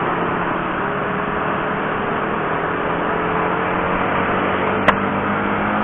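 Honda CB150R's single-cylinder engine running steadily under light throttle, its pitch creeping slightly upward, over a rush of wind and road noise. A single sharp click about five seconds in.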